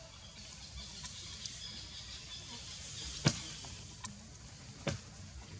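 Faint outdoor background with faint high-pitched chirps, broken by two sharp clicks, the first about three seconds in and the second about a second and a half later.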